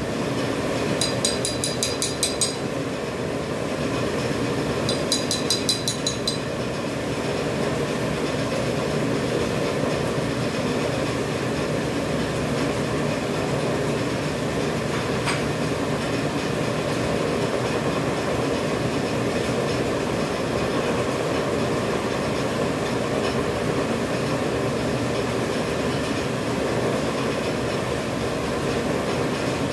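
Dental (surgical) mask production machine running with a steady, dense mechanical rattle and hum. In the first few seconds there are two short runs of fast, sharp ticking.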